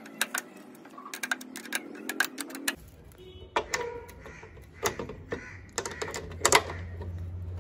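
Quick metallic clicking of a spanner working nuts loose on a motorcycle's fittings. About three seconds in the clicks thin out to scattered clicks and metal taps, with a low steady hum underneath.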